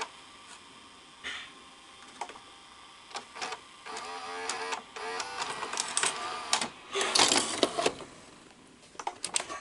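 Irregular mechanical clicking and clatter from a Sony SLV-R5UC S-VHS VCR's tape mechanism as it plays a tape. The clicks are busiest a little past the middle.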